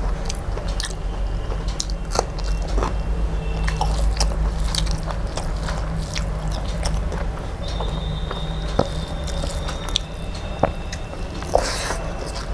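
Close-miked chewing and mouth sounds of a person eating rice and curry by hand, with scattered sharp clicks, over a steady low hum.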